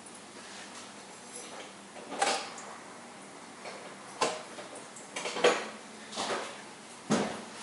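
Sharp clanks and clatters of hard, metallic-sounding objects, about six spread unevenly over a few seconds, some with a brief ring.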